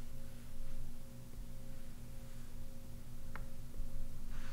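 Steady electrical hum made of a few fixed low tones over faint noise, with a single faint tick of the Apple Pencil tip on the iPad's glass screen about three seconds in.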